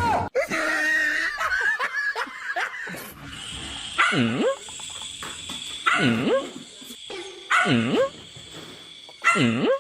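A dog vocalizing in four loud, repeated calls, each dipping in pitch and sliding back up, spaced about a second and a half to two seconds apart, after a few seconds of quieter wavering sounds.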